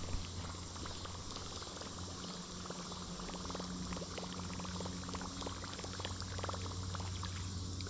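Baitcasting reel being wound in to retrieve a topwater lure: a sharp click at the start, then soft irregular ticking with a faint gurgle of water.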